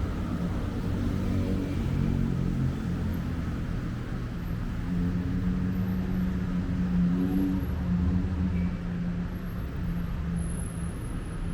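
Busy city road traffic: motor vehicle engines running with a steady low hum as cars pass close by.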